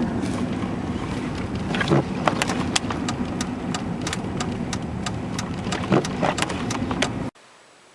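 A vehicle driving through snow: steady engine and road noise with a low hum and many scattered sharp clicks and knocks. It cuts off suddenly about seven seconds in, leaving only faint background.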